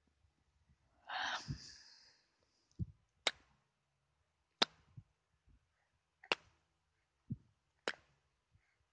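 A short breathy vocal sound about a second in, then four sharp clicks spaced one to two seconds apart, with a few soft low thumps in between.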